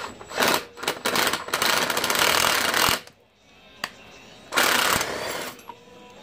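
Impact wrench hammering in bursts as it drives the screw of a homemade valve spring compressor, which has a nut welded on its end, to work a valve spring on the cylinder head. A few short bursts come first, then a long run of about a second and a half. After a pause there is one more burst of about a second.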